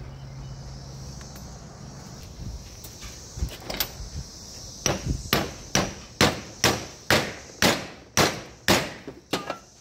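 Hammer tapping a bearing down into a skidder axle's steel planetary gear. About halfway in come about ten sharp metal strikes, roughly two a second.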